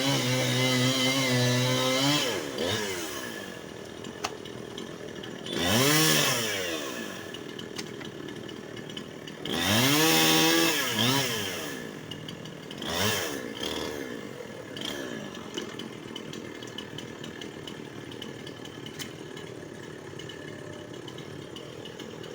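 Chainsaw running at high revs for about two seconds, then dropping to idle. It is revved up and back down twice, about six and ten seconds in, with a short blip near thirteen seconds, and then idles steadily.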